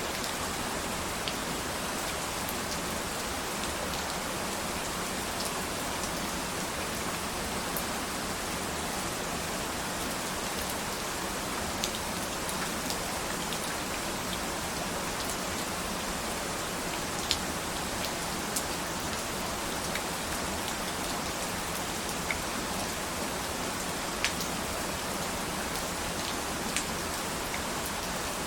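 Steady rain falling, a constant hiss with scattered sharp drips and drop impacts standing out now and then.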